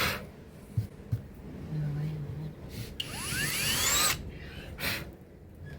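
Small power drill spinning up with a rising whine about three seconds in, running for about a second and then stopping, while drilling star holes in a charred slice of log. A few clicks and handling knocks come before it.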